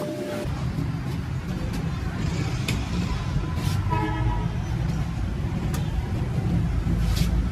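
An engine comes in sharply about half a second in and runs with a steady, rough low rumble. A short horn-like toot sounds near the middle.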